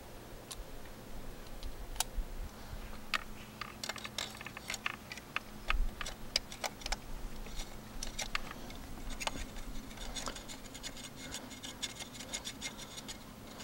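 Metal hand tools and parts clicking and clinking during spark plug work in an engine bay. The clicks are scattered at first and come thicker from about three seconds in.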